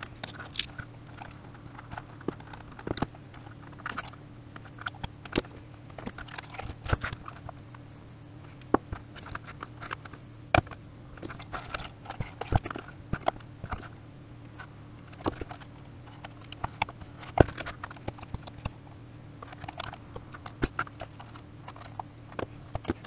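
Hard plastic housing of a Siemens VDO BSM fuse box being pried and broken apart: irregular cracks, snaps and clicks of plastic and tool, over a steady low hum.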